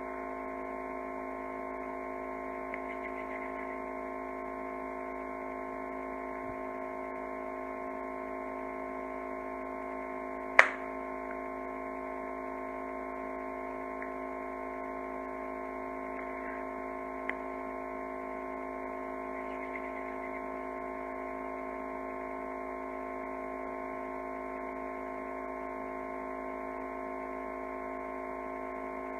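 Steady electrical hum made of several constant tones, with a sharp click about ten seconds in and a smaller one a few seconds later.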